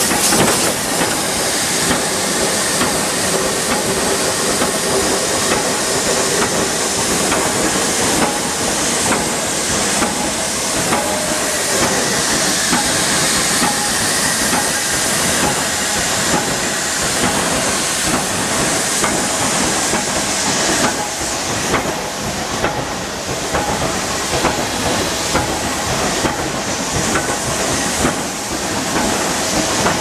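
Power punch press running continuously, stamping parts from steel strip: a loud, steady clatter of rapid strokes with a hiss over it.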